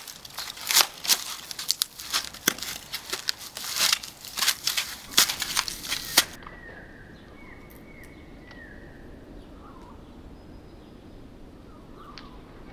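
Polystyrene foam crunching and crackling under a bare foot, a dense run of crackles and squeaks that cuts off suddenly about six seconds in. After that only a low steady background with a few faint short chirps.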